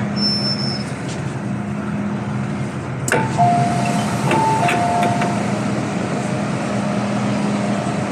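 MTR M-train running, a steady rumble with a low hum from inside the car. About three seconds in there is a sharp click, then a two-note chime alternating between a higher and a lower tone for about two seconds.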